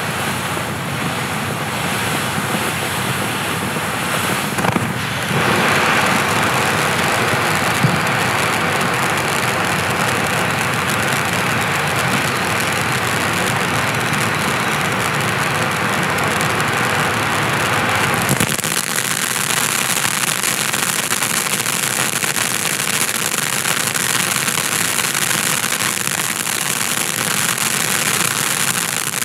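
Black Cat Summer Rain ground fountain spraying sparks with a loud, steady rushing hiss. About 18 seconds in the sound turns thinner and higher-pitched as the fountain moves to its next effect.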